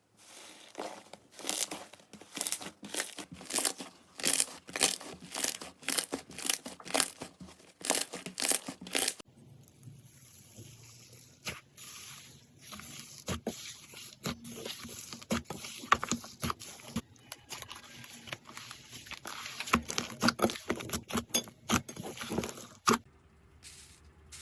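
Slime being pressed and worked by hand for ASMR: a run of quick, loud clicking strokes, then after a sudden change a quieter stretch of scattered clicks and pops.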